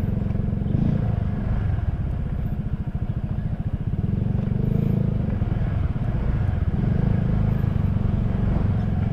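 Motorcycle engine running steadily at low revs, its low, even firing pulse unbroken throughout.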